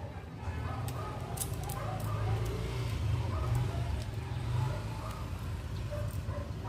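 Steady low mains hum from a toroidal transformer energized at 220 V 60 Hz, with a few faint clicks over it.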